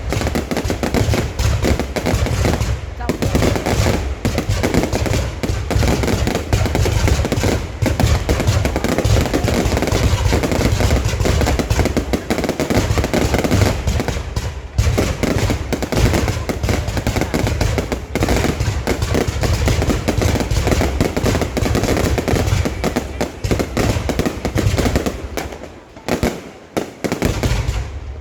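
Fireworks display: a dense, continuous run of bangs and crackling over a heavy low rumble, easing off briefly near the end.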